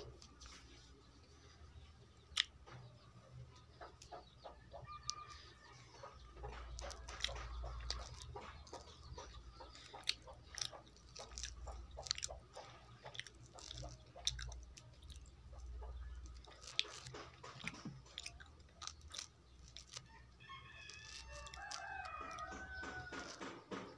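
Faint clicks and crackles of an orange being peeled by hand. A rooster crows in the background near the end.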